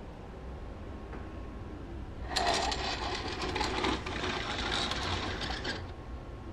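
A dense mechanical rattle of rapid clicks, starting about two seconds in, lasting about three and a half seconds and stopping suddenly, over a low steady hum.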